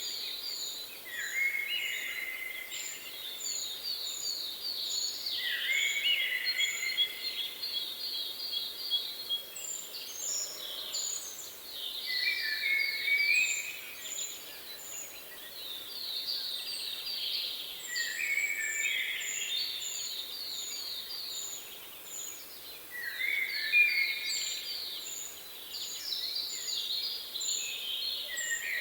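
Songbirds singing: repeated phrases of rapid, descending chirped notes every few seconds, over a regular series of short, high, thin notes.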